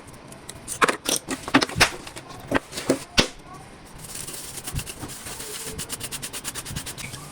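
Metal clicks and knocks from handling tools and parts while servicing a motorcycle starter motor: several sharp separate knocks in the first half, then a fast, even run of small clicks.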